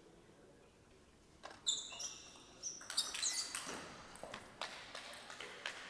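Table tennis rally starting about a second and a half in: the celluloid ball clicking off rackets and table in quick succession, mixed with short high squeaks of shoes on the court floor.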